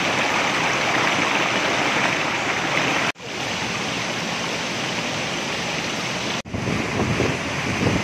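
Rushing water of a waterfall and the rocky cascades below it, a steady roar of white water. It cuts out sharply twice, about three seconds in and again a little past six seconds, as one shot of falling water gives way to the next.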